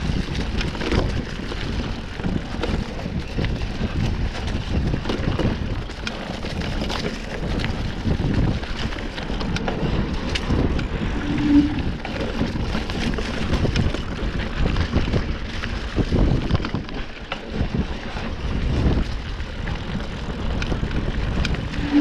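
Mountain bike riding a dirt trail: wind rushing over the microphone, tyres rolling on dirt and the bike rattling over bumps. A brief low tone sounds twice, about halfway through and at the end.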